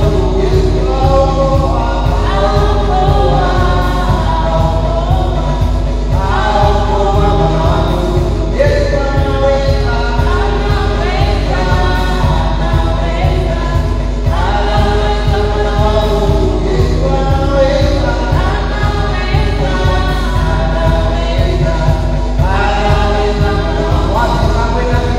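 Group of voices singing a gospel song in phrases over instrumental backing with a steady low beat, and a constant electrical hum underneath.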